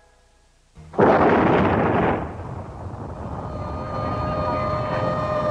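A bomb explosion: a sudden loud blast about a second in that dies away over about a second, then a siren starts up and grows louder.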